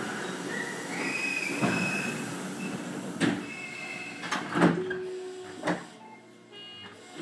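Sliding doors of a Tobu 50000-series train closing at a station stop: a few electronic tones, then several knocks as the doors shut, and a short buzz near the end.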